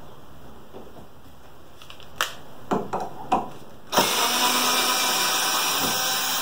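A few light knocks of wood being handled, then about four seconds in a power tool's motor starts and runs at a steady speed.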